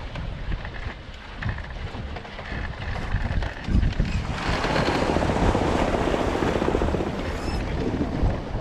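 Wind buffeting the microphone aboard a sailboat under way, with water rushing along the hull. The rushing grows louder for about three seconds in the middle.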